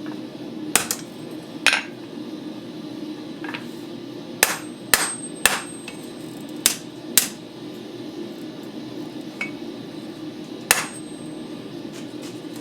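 Hand hammer striking to set the rivet that joins the two halves of a pair of forged tongs: about nine sharp, irregularly spaced blows, several in quick pairs, over a steady low hum.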